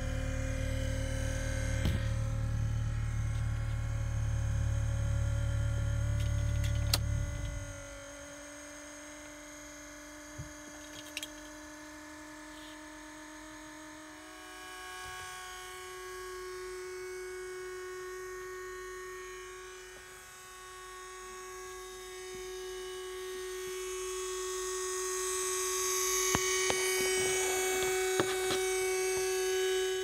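Cabin air aspirator fan for the interior temperature sensor behind the instrument cluster of a 2015 Mercedes-Benz GLA, making a high-pitched squealing racket: several steady whining tones that shift in pitch now and then. The racket comes in the cold and is the sign of a faulty aspirator fan and temperature-sensor unit. A low rumble runs under it for about the first seven seconds, then drops away.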